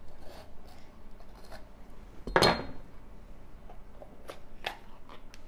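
Kitchen knife cutting around the top of a bell pepper on a bamboo cutting board and the pepper being pulled apart by hand: light crunching and tapping, with one louder sharp knock about two and a half seconds in.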